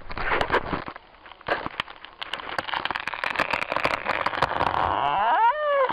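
Felled tree's hinge wood crackling and snapping as the fibres give way after wedging, with a rising creak about five and a half seconds in.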